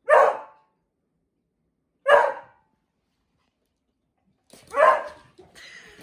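A dog barking in play, three short sharp barks about two seconds apart, with fainter scuffling noise after the last one.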